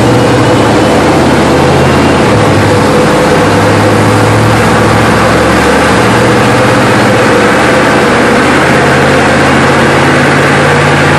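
Chevrolet Z71 pickup's engine running steadily on a chassis dynamometer, with a small shift in pitch about six seconds in and a slow rise in pitch near the end.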